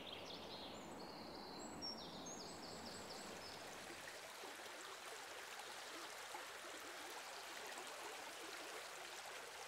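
Faint, steady rush of a small woodland brook flowing. A bird sings a run of short high notes over it during the first couple of seconds.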